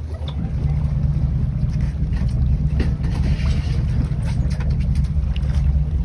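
Fishing boat's engine running with a steady low rumble, wind buffeting the microphone, and a few faint clicks.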